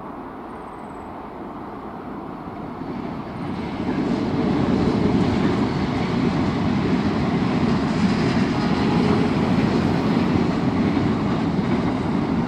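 Diesel-hauled loaded grain train passing: the rumble builds about three and a half seconds in as the single locomotive goes by, then holds as the loaded grain wagons roll past.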